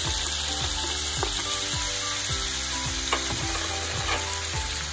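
Fried tofu cubes sizzling in hot oil in a frying pan with garlic, onion and green chili as they are tipped in and stirred with a spatula, with a few light knocks of the spatula against the pan. Soft background music with a steady beat runs underneath.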